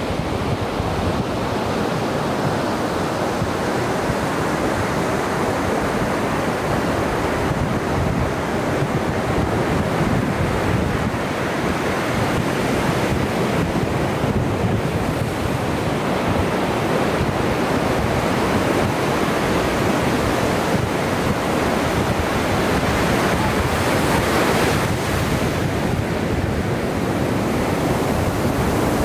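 Pacific Ocean surf washing steadily onto the beach, a continuous rushing noise with no single crash standing out, with some wind on the microphone.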